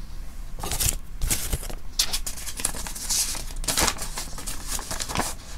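Paper instruction leaflet being handled and unfolded, rustling and crinkling in a run of short, irregular bursts.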